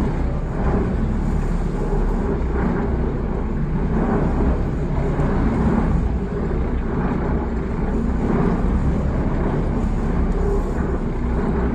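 Steady low rumble of a boat under way on the river, its motor running, with small swells in level.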